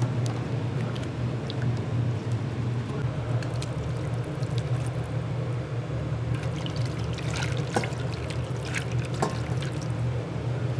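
Liquid pouring and splashing over a steady low hum, with light clicks and clinks in the second half.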